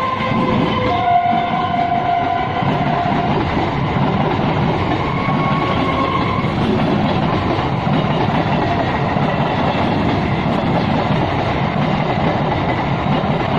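Electric multiple-unit suburban train passing close by, a continuous loud rumble and clatter of coaches running on the track. A few steady whining tones sound over the first few seconds.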